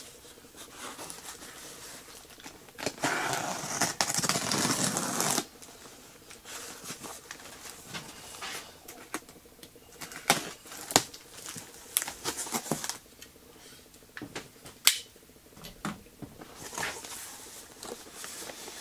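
Box cutter slicing through packing tape and cardboard in one long scraping stroke about three seconds in, followed by scattered sharp clicks and knocks and some rustling as the cardboard flaps are pulled open.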